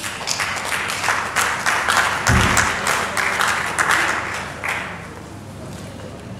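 Audience applauding: a dense run of hand claps that thins out and fades after about five seconds. A single low thump comes about two seconds in.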